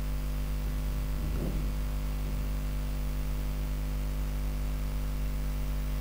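Steady electrical mains hum with hiss from the recording chain, with a faint brief sound about a second and a half in.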